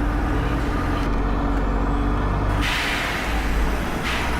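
Volvo B7RLE single-deck bus's diesel engine running steadily, with a sudden hiss of compressed air being released about two-thirds of the way through and a shorter one near the end.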